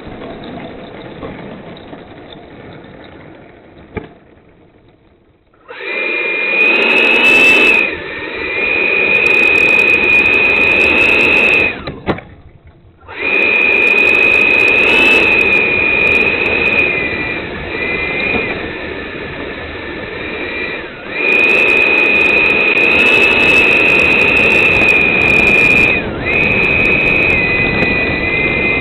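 Twin 90 mm electric ducted fans of a Freewing F-15 model jet, heard close up from the airframe, whining at high throttle while the jet rolls along the runway. The whine comes in about six seconds in, cuts out for about a second near the middle, and returns with brief dips in pitch and level.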